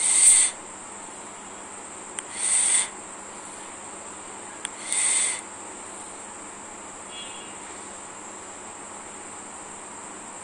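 Crickets trilling steadily at a high pitch, with three loud short calls from some animal, each about half a second long and about two and a half seconds apart, in the first half.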